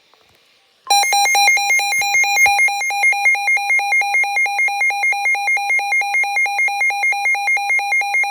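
Emergency alert attention tone before a weather-radio warning: a loud, harsh electronic two-tone alarm warbling about four times a second, starting about a second in.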